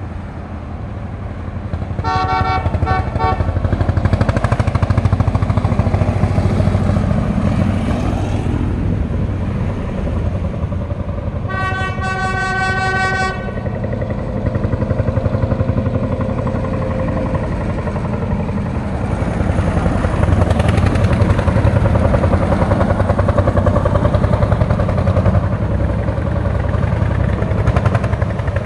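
Lanz Bulldog tractors' single-cylinder two-stroke hot-bulb engines running as they drive past, a fast, even beat. A horn sounds in a few short toots about two seconds in and again in one longer blast about twelve seconds in.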